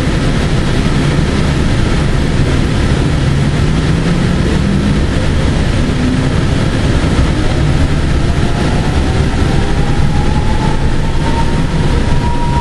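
Interior of a Link light rail car running on the line: a steady rumble of wheels on rail, with the electric traction motors whining and rising in pitch as the train gathers speed.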